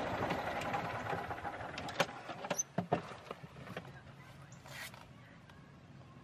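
Golf cart running and slowing to a stop, its steady running noise fading away over the first two or three seconds, followed by a few sharp clicks and knocks.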